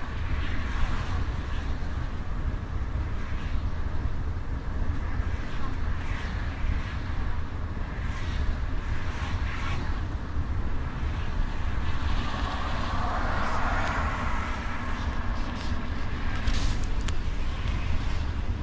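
Steady low rumble of a motor coach's engine and tyres at motorway speed, heard from inside the passenger cabin.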